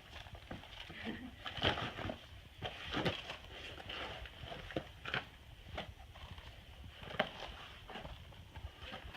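Footsteps and scuffs on rock: irregular knocks and scrapes of shoes as someone walks and clambers over stone.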